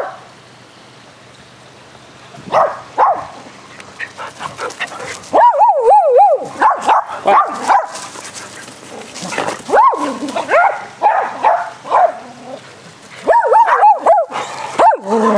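Dogs barking and yipping in rough play: a couple of barks about two and a half seconds in, then rapid, near-continuous strings of barks from about five seconds in.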